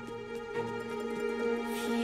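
Cartoon soundtrack music: a held chord of steady tones over short low notes, with a brief swish near the end.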